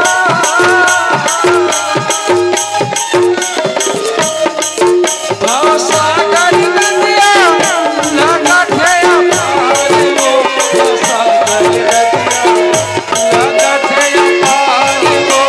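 Chhattisgarhi folk nach music in an instrumental passage between sung lines: a steady, fast beat of drums and jingling cymbals under a melody line that wavers and slides.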